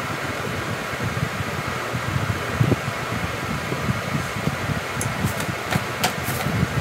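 A steady fan-like whooshing noise, with a few light clicks near the end.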